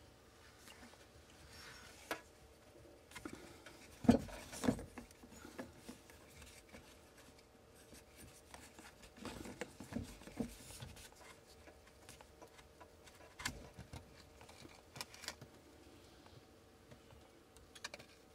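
Scattered knocks and rubbing as braided stainless-steel sink supply hoses and their fittings are handled and moved under the sink cabinet. The loudest are two knocks about four seconds in, with a few more around the middle and later on.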